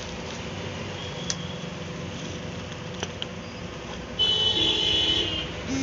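Steady background street noise with a thin hum and a couple of light clicks as a plastic peanut-butter tub is handled. About four seconds in comes a louder pitched tone lasting about a second and a half and dropping in pitch near the end.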